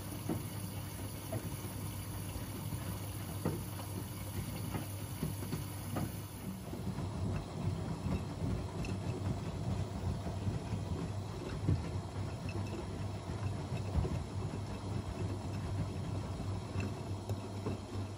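Two washing machines, an AEG Öko-Lavamat 88840 and a Miele Novotronic W 985, running an easy-care wash: a steady hum with many small knocks and clicks from the turning drums.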